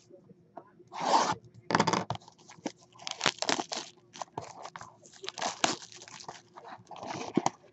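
Packaging being torn and crinkled as a box of baseball cards is opened, in a series of irregular rustling bursts and small clicks.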